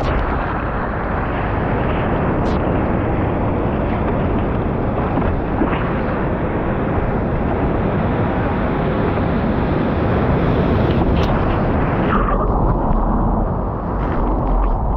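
Surf and whitewater rushing and splashing over a surfboard, picked up by a camera mounted on the board's nose, a loud steady rumble. About twelve seconds in the sound turns duller as water washes over the camera.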